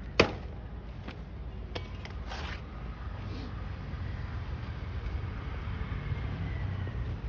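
Handling noise from a phone microphone: a sharp knock just after the start and a few softer clicks and rustles as the phone brushes against clothing, over a steady low rumble.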